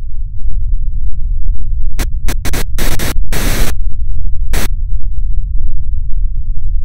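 Electronic noise music for a logo sting: a heavy, distorted low rumble with glitchy clicks, broken by several short blasts of static about two to four and a half seconds in.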